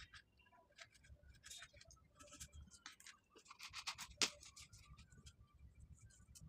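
Faint rubbing and crinkling of a thin plastic water bottle being handled, with small scattered clicks and one sharp knock about four seconds in.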